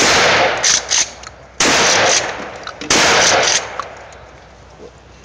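Shotgun fired three times in quick succession, about a second and a half apart. Each loud blast is followed by a trailing echo.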